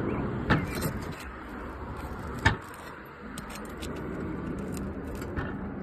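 Roof shingles being worked loose with a hand tool: scraping and prying with two sharp snaps, the second louder, about two seconds apart, as the shingle's seal gives. A steady low rumble, like passing traffic, runs underneath.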